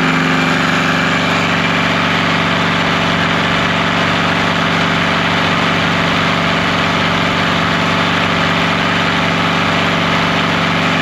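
Kubota engine of a DIY DC generator running steadily under load, driving its alternator to charge batteries at about 70 amps, with the radiator cooling fan running continuously.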